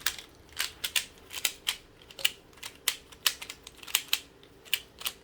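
Speed cube being turned quickly by hand, its layers clicking sharply at an uneven pace of about three turns a second as it is scrambled and solved.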